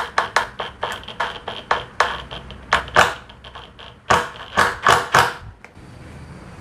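Ryobi Kyocera BID10XR 18 V impact driver on its low speed setting slowly driving a screw into wood, its hammer mechanism clacking irregularly several times a second. It stops about five and a half seconds in.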